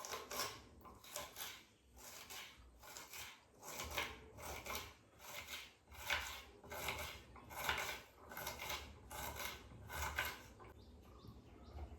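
Vegetables being cut by hand in the kitchen: rhythmic rasping strokes, about one and a half a second, that stop shortly before the end.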